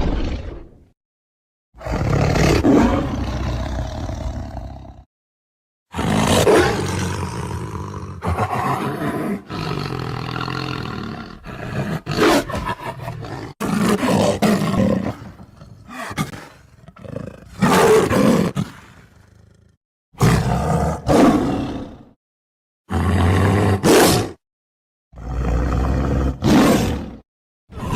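Lion roaring and growling in a string of separate calls, each one to five seconds long with short silences between.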